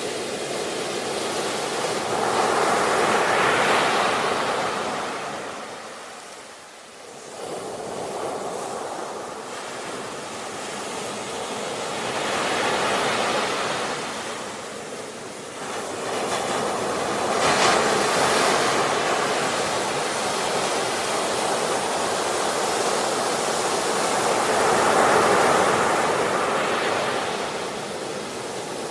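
Ocean waves breaking on a shore, a steady hiss of surf that swells and ebbs in slow surges every several seconds, with a brief lull between waves about seven seconds in.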